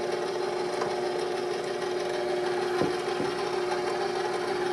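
KitchenAid stand mixer running at its lowest stir speed, its motor giving a steady, even hum as the wire whisk turns through powdered sugar.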